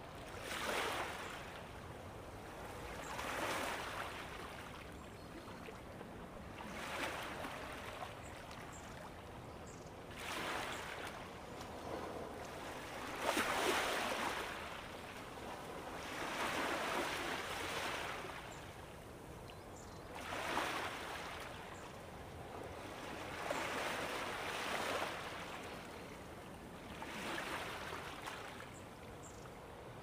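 Ocean waves washing in one after another, each swelling and falling away over about three seconds; the biggest comes about halfway through.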